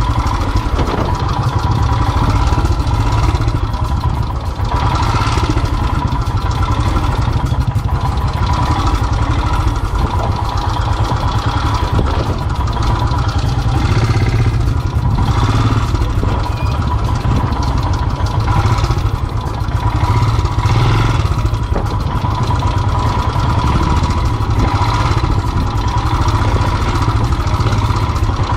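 Royal Enfield single-cylinder motorcycle engine running steadily at low revs.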